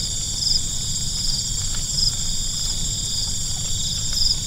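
Insect chorus: several steady high-pitched drones, with a short buzzing pulse recurring about once a second, over a low rumble.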